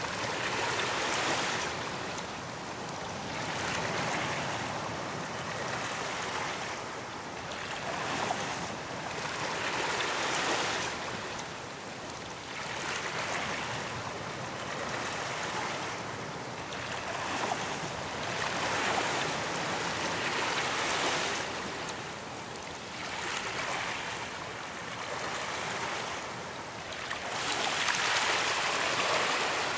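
Ocean waves breaking on a beach: a steady wash of surf that swells and recedes every two to three seconds.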